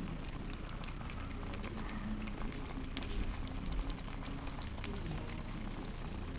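A litter of West Highland White Terrier puppies lapping and smacking at soft food in a shared metal pan: a dense, irregular patter of small wet clicks.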